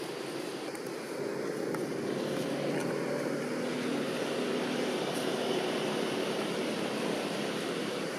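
A steady engine drone over outdoor background noise.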